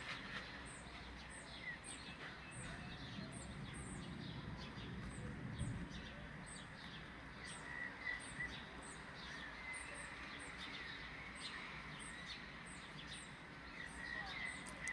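Small birds chirping outdoors, short high calls repeated irregularly a couple of times a second, over a faint outdoor background with a low rumble about three to six seconds in.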